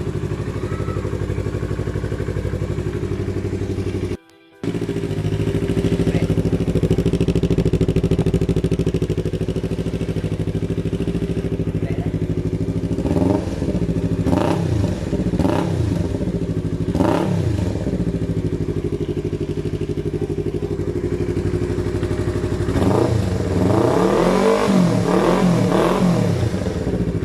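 Yamaha MT-25's 249 cc parallel-twin engine idling through an aftermarket full-system exhaust, with a brief cut-out about four seconds in. Three quick throttle blips come past the middle, then a longer run of revving near the end.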